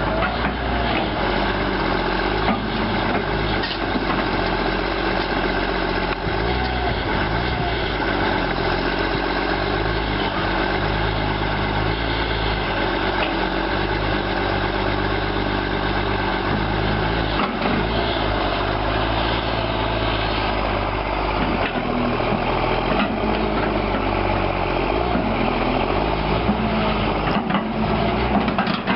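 Heavy construction machine's engine running steadily, its pitch stepping up and down as the load changes, with a few short clanks.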